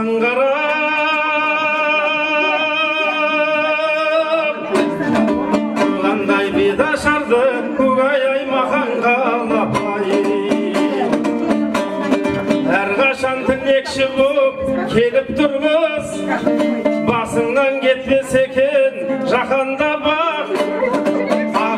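A man singing a Kazakh betashar, the bride-unveiling song, to a plucked dombra. He holds one long wavering note for about the first four seconds, then sings on over quick, steady dombra strumming.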